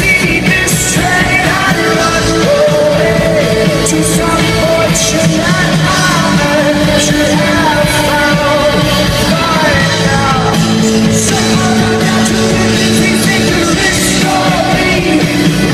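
Live rock band playing a song, with a male lead vocal singing over sustained guitar and steady drums and cymbals.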